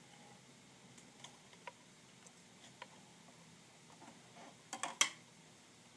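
Pencil drawing on paper: faint, irregular light ticks and taps of the pencil tip, then a quick run of three or four sharper clicks about five seconds in.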